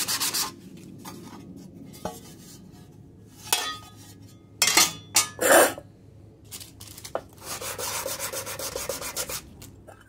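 Sandpaper rubbed back and forth by hand over a steel cover plate, quick rasping strokes sanding off dirt and flaking paint. The sanding stops for a few seconds of lighter handling noise with a few short, loud scrapes, then starts again near the end.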